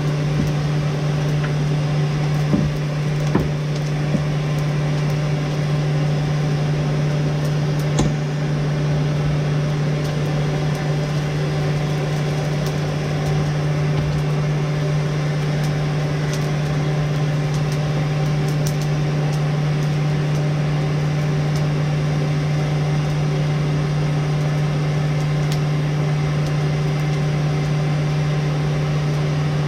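Blacksmith's forge running steadily: a constant low hum with a noisy rush over it, and a few light knocks in the first eight seconds.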